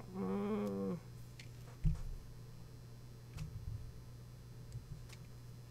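A man's short held hum of effort, then a dull knock about two seconds in and a few lighter knocks and faint clicks: tongue-and-groove (Channellock) pliers gripping and twisting the press-fit button tip of a steel hinge pin through a cloth, working it loose. A steady mains hum underneath.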